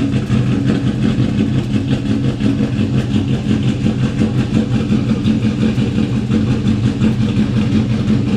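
Car engine running steadily at a low, even speed.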